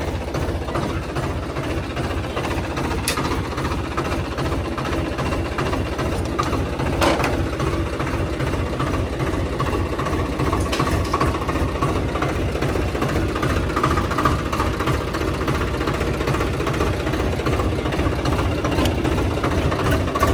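Swaraj 744 XT tractor's three-cylinder diesel engine running steadily with a diesel clatter, growing a little louder as it goes. A few short sharp clicks sound over it, the clearest about seven seconds in.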